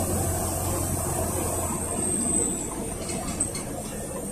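Interior sound of a PAZ 4234-05 bus driving: the Cummins ISF3.8 four-cylinder turbodiesel hums under steady road and body noise. The low engine hum fades about halfway through, leaving tyre and rattle noise.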